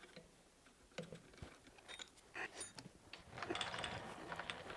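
Faint scattered metallic clicks and light knocks of tools and metal parts being handled, growing busier with a noisy rattling scrape in the second half.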